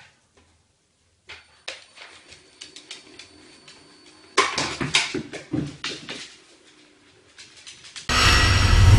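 iFetch automatic ball launcher with a faint high whine for a few seconds, then a sudden loud thump as it throws the ball, followed by a clatter of knocks from the ball and the dog's feet on the wooden floor. Music comes in about a second before the end.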